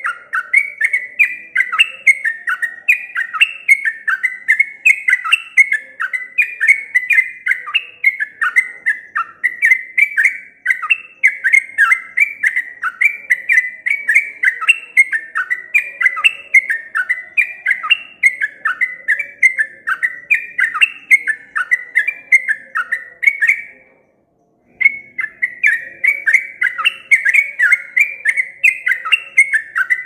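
Caged yellow-vented bulbul (trucukan) in full song: a long, unbroken run of short, sliding whistled notes, several a second, that breaks off for about half a second some four-fifths of the way through.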